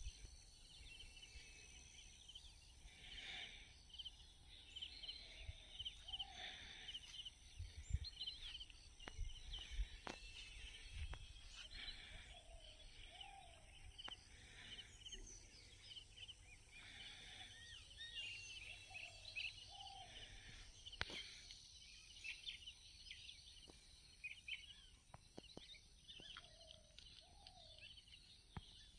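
Faint outdoor ambience of birds: many small chirps and calls, with a lower short call recurring every couple of seconds, and occasional low rumbles on the microphone.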